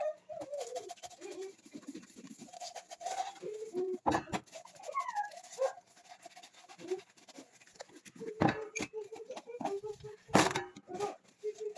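A dog whining in short, falling, high-pitched whimpers, over scattered knocks and clatter, with three louder knocks about four, eight and a half and ten seconds in.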